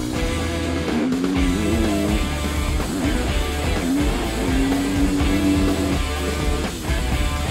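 Rock music led by electric guitar, a melodic line sliding between notes over a steady low bass part.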